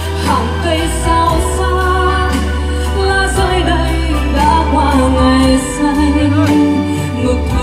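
A song with a lead vocal and a heavy, steady bass, played loudly through a large stage line-array and subwoofer sound system.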